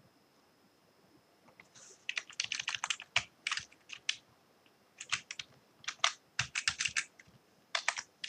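Typing on a computer keyboard: quick runs of keystrokes starting about two seconds in, broken by short pauses. A faint steady high whine sits underneath.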